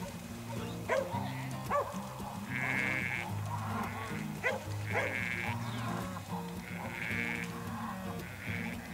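Sheep bleating about four times over background music with a steady bass line.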